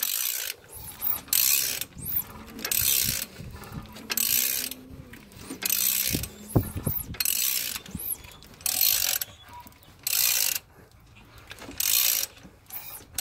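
Ratchet wrench clicking in repeated strokes, about every second and a half, as the crankshaft of a Chrysler 2.7 V6 is turned by hand to bring the timing chain around to its marks.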